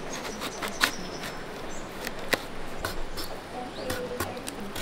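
Curved knife shaving the green rind off a breadfruit: a string of short, crisp cutting and scraping sounds at an irregular pace, with birds calling faintly behind.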